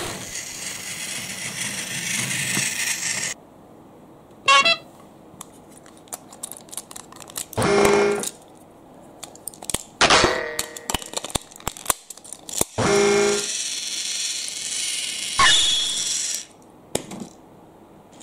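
Toy train sounds: two short horn toots about five seconds apart, among scattered clicks and stretches of steady hissing noise.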